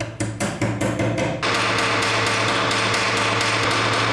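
Small hammer peening a steel rivet on the hinge of a steel ring against a steel block: rapid light metal-on-metal strikes, about six a second, that thicken into a dense, even tapping after about a second and a half.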